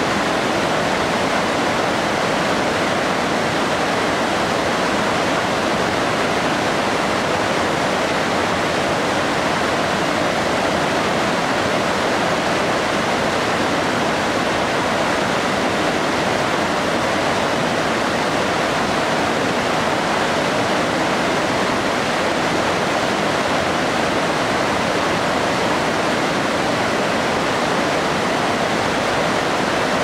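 Yoro Falls, a tall waterfall and the rocky cascade below it, heard up close: a loud, steady, even rush of falling and tumbling water.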